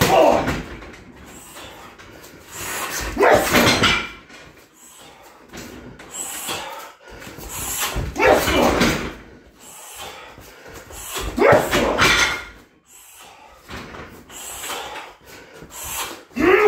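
Five heavy thuds of shin kicks into a 60 kg heavy bag, about every three to four seconds, each paired with a short sharp shout from the fighter as he strikes.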